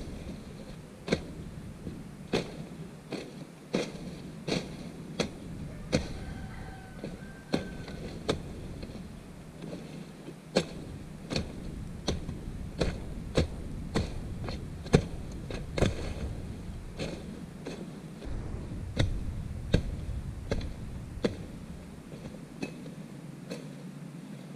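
Machete chopping through brush and small stems: a run of sharp cutting strokes, about three every two seconds, some louder than others.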